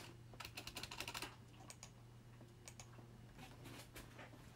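Quiet typing on a computer keyboard: a quick run of keystrokes lasting about a second, then a few scattered single clicks, over a low steady hum.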